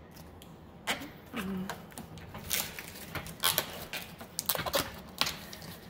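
Irregular clicks and light knocks of a metal trim piece being handled and pressed into place against a drawer microwave's frame, coming more thickly in the second half.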